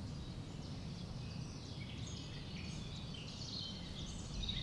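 Faint outdoor background: a steady low rumble with distant birds chirping.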